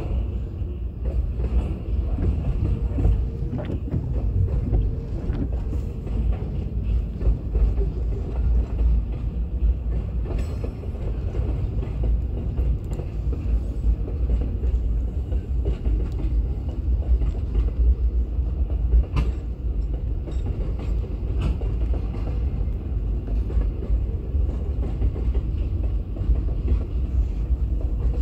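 Freight train wagons rolling past: a steady rumble of steel wheels on rail, with scattered clicks and clanks.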